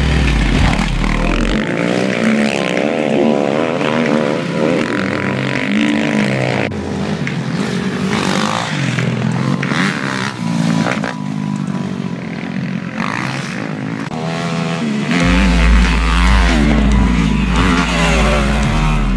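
Off-road motorcycle engines revving up and down repeatedly as dirt bikes accelerate along a dirt track.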